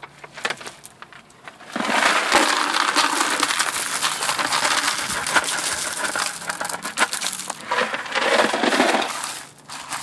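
Pebble gravel poured from a plastic bucket, clattering and rattling down onto gravel in the basin. A few scattered stone clicks come first, then about two seconds in a steady pour runs for several seconds and thins out near the end.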